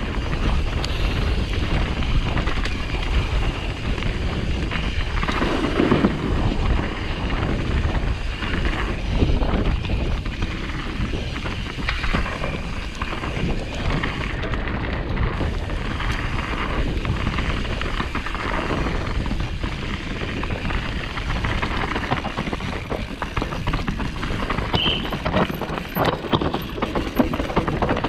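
Downhill mountain bike ridden fast over rough trail: wind rushing over the action camera's microphone, with the tyres on dirt and rock and the bike clattering over bumps in a constant stream of small knocks.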